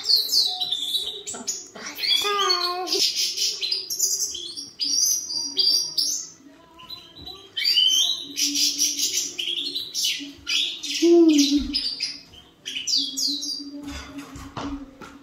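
European goldfinch of the large 'major' form (Carduelis carduelis major) singing its twittering song: rapid chirps, trills and quick rising and falling whistles, broken by a few short pauses.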